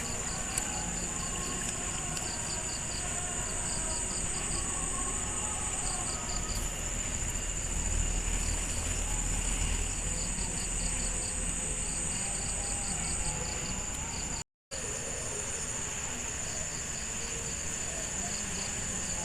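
Insects calling in a chorus: a steady high buzz with rhythmic chirping in short groups over it. The sound cuts out for a moment about three-quarters of the way through.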